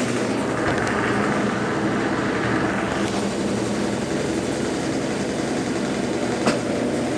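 Consul Facilite 10 kg top-loading washing machine running through its rinse and spin cycle: a steady motor hum with a constant tone, a rush of hiss for a couple of seconds near the start, and a single click near the end.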